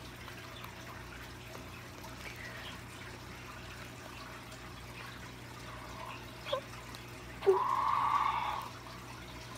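Slime being kneaded and stretched by hand, giving faint wet clicks and squishes. Near the end there is a sudden start and about a second of raspy blowing as air is blown into the slime to inflate a large bubble.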